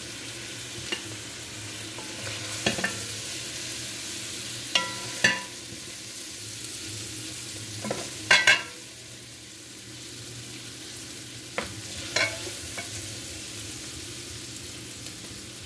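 Wooden spoon scraping and knocking against a metal pot and a plate as lobster tails and buttered baby potatoes are spooned out. Scattered sharp clacks, loudest about eight seconds in, over a steady hiss.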